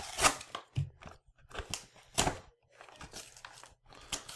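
Cardboard and plastic packaging of a toy playset being handled and torn open by hand: a series of short, irregular noises, the loudest about two seconds in.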